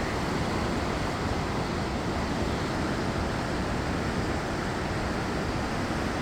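Steady rushing of swollen floodwater, an even, unbroken noise that holds at one level throughout.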